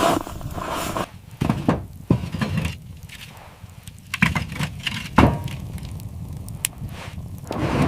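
A series of irregular thuds and knocks over a steady low rumble, the loudest about five seconds in.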